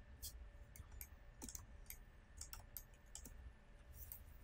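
Faint, irregular computer mouse clicks, a dozen or so, over quiet room tone.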